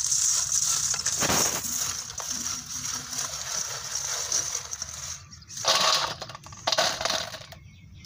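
Crisp fried aathandangai chips rustling and crackling as they are tossed by hand in a stainless steel colander to coat them with spice powder. A little past halfway they are tipped out onto a steel plate in a louder rattling spill.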